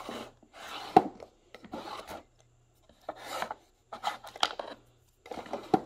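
Handling noise: about five short scraping rubs, with a sharp click about a second in and another near the end.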